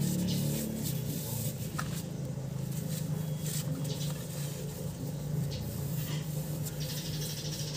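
Cloth rag rubbing over a steering rack's metal housing, with a few light clicks of the parts being handled, over a steady low hum.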